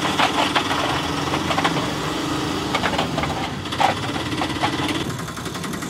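The small motor of a remote-control toy auto-rickshaw runs steadily as it climbs concrete steps, with a few short knocks.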